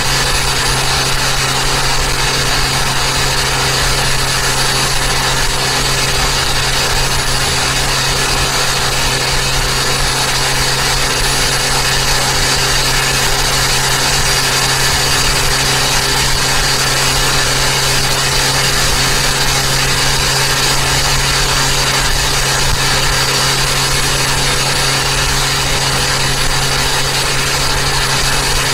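Turbocharged Toyota Avanza engine running at a steady cruise, its drone mixed with tyre and wind noise, holding one pitch and level with no revving.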